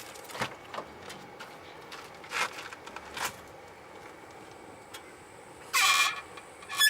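Car disc brakes squealing: a loud high-pitched squeal lasting about half a second near the end, then a short sharp chirp, with a few faint brief squeaks earlier. The squeal comes from a front caliper whose slide pins are worn and packed with old grease.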